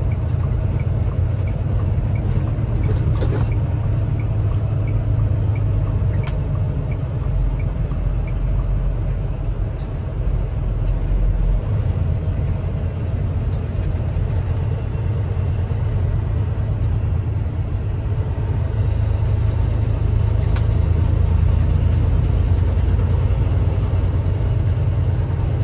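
Semi-truck cab interior at road speed: steady diesel engine drone and road rumble. A turn signal ticks about twice a second through the first six seconds or so, then stops.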